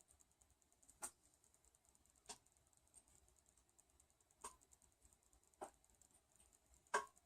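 Light clicks and taps of kitchen utensils against cookware, five separate ones spread irregularly, the one near the end the loudest, over near silence.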